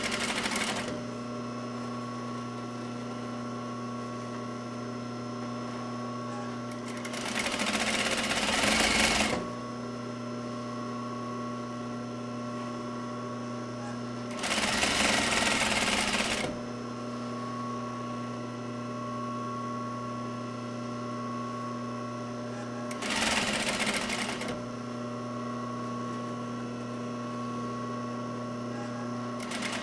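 Sewing machine stitching a doll-dress lining seam in short runs of one to two seconds, about every seven seconds, with a steady hum between the runs.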